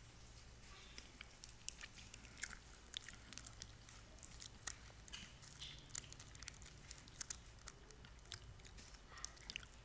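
Faint, scattered clicks and taps of small communion cups being handled and set down while the cup of the Lord's Supper is taken, over a low steady room hum.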